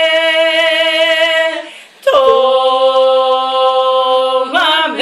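Three women singing a Spanish-language worship song a cappella, holding long notes. They break for a breath about two seconds in, then hold the next note.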